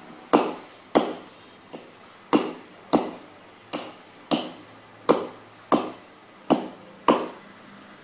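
Hand-cut chops into a coconut palm trunk: about ten sharp, ringing strokes, mostly in pairs a little over half a second apart with a short pause between pairs.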